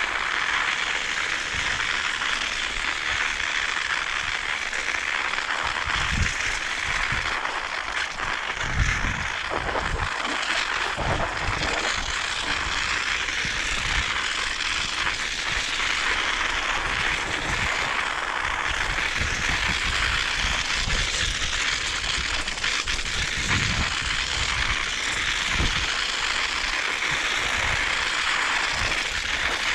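Steady crackling hiss of bicycle tyres rolling over snow and ice, with occasional low thumps.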